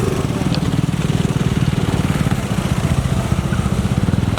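Small scooter engine running with a fast, even putter.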